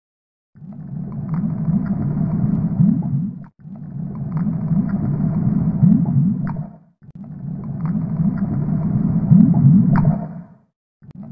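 Water pouring from a plastic pitcher into a shallow metal tray of rolled oats: a dull, low splashing rush. It starts about half a second in, breaks off for a moment twice and stops just before the end.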